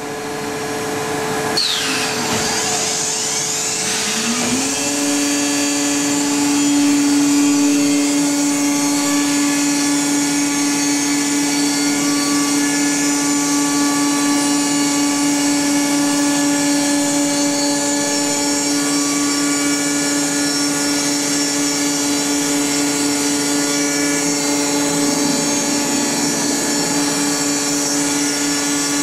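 Router spindle of a Wadkin UX CNC machining centre running, with a steady high whine over a loud hiss while cutting wood. A couple of seconds in its pitch falls sharply and climbs back to a steady note. Near the end the pitch dips briefly and then recovers.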